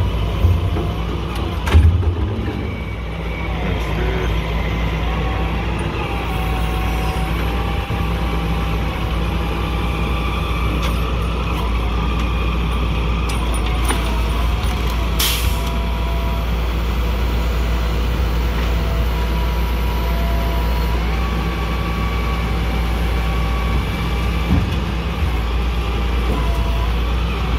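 Grapple truck's diesel engine running steadily, driving the hydraulics of the knuckle-boom grapple, with a whine that shifts in pitch as the boom and claw are worked. A knock comes about two seconds in, and a short sharp noise about fifteen seconds in.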